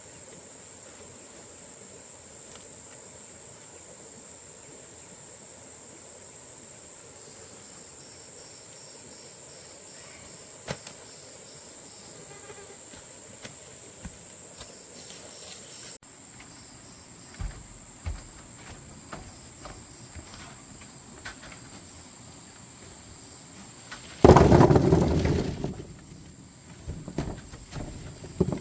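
Steady high-pitched insect drone, with scattered clicks and knocks. A loud, noisy rustle comes about three-quarters of the way through and lasts about two seconds.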